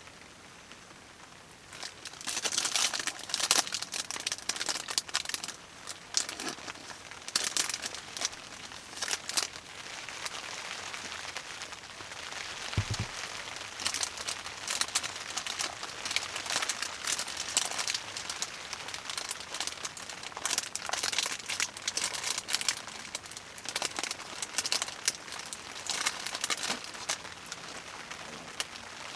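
Crinkling and rustling of plastic handled close by, in irregular bursts that start about two seconds in, over a steady hiss of rain.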